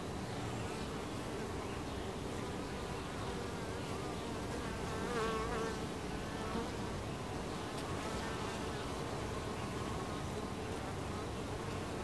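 Honey bees buzzing at a hive entrance: a steady hum of many wings, with one bee passing close about five seconds in, its buzz briefly louder and wavering in pitch.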